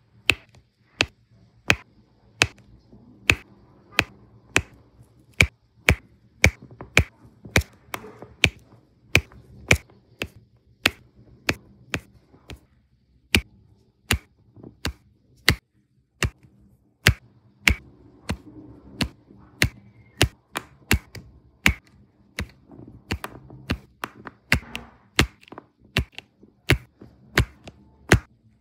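Sharp, separate clicks, one or two a second and unevenly spaced, of a diamond painting applicator tool pressing resin drills down onto the sticky canvas.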